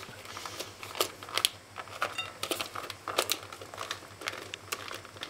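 Raisins tumbling out of a tin into a mixing bowl, with irregular light clicks and rustling.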